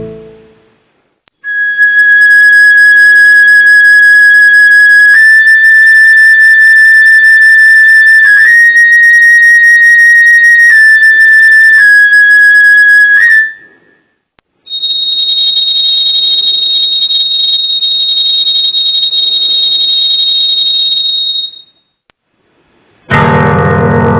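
Loud, steady whistle-like tones: one held note that steps up and back down in pitch a few times for about twelve seconds, then after a short break a higher, piercing note held for about seven seconds.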